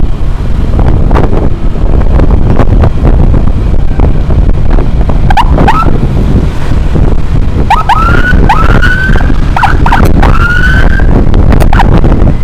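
Emergency siren giving a run of short rising whoops over several seconds, starting about halfway through, over the loud steady wind and road rumble of a motorcycle ride.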